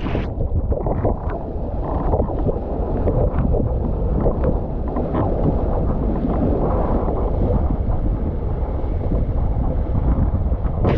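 Wind buffeting the microphone of a boom-mounted camera on a windsurfer under sail, with water rushing past the board; a steady, dense rumble.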